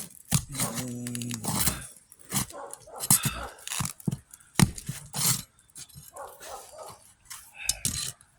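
A dog barking and whining, mixed with sharp knocks and scrapes from a shingle being pried off a roof.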